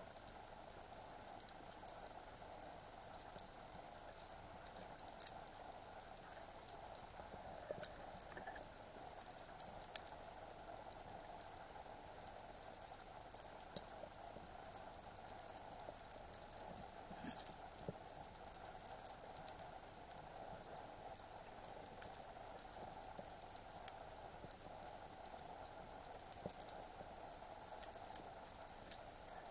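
Underwater ambience heard through a camera housing: a steady low hiss with scattered faint clicks and crackles, and a few sharper ticks.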